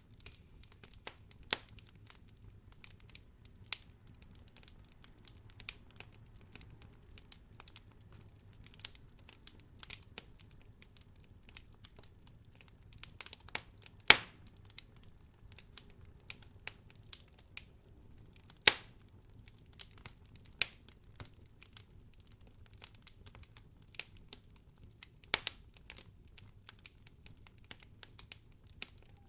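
Wood campfire burning, the firewood crackling with irregular sharp pops, the two loudest a little before and after the middle, over a faint steady low rumble.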